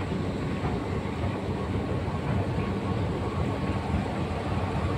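Escalator running: a steady mechanical rumble with a faint steady hum above it.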